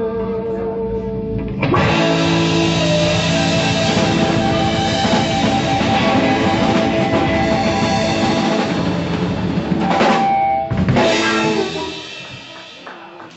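Live blues band playing, with electric guitar, drum kit and keyboard. The full band comes in about two seconds in, stops sharply about ten seconds in, strikes once more, and then the sound rings out and fades near the end.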